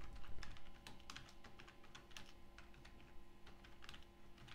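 Typing on a computer keyboard: a quick, uneven run of key clicks, over a faint steady hum.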